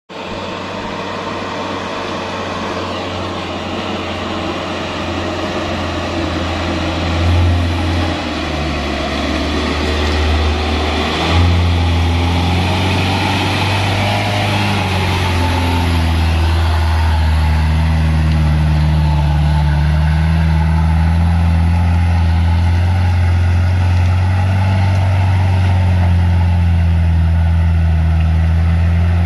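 Diesel engine of a truck loaded with oil palm fruit bunches, working hard on a muddy track. It grows louder over the first dozen seconds, its note shifting around eight and eleven seconds in, then holds a steady, loud drone as the truck pulls up the slope.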